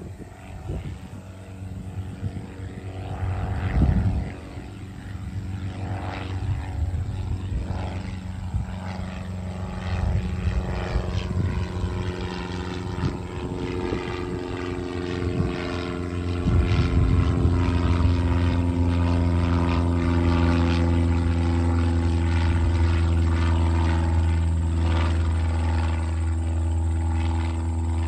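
Propeller drone of a single-engine Cessna piston plane climbing out on departure, a steady engine note with evenly spaced tones that grows louder as it passes overhead and stays at its loudest through the second half.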